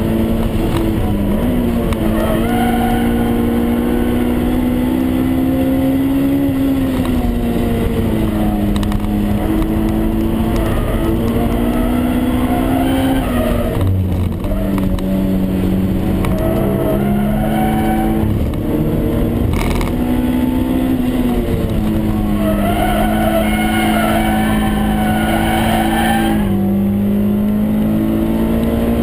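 Honda S2000 AP1's 2.0-litre four-cylinder engine under hard acceleration on track, heard from inside the cabin, its pitch climbing through each gear and dropping back at the shifts, several times over.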